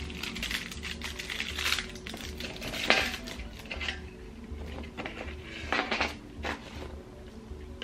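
Clinks and clatters of a metal fork and an aluminium foil tart cup being handled and set down on a wooden plate, the loudest clink about three seconds in, over quiet background music with a steady beat.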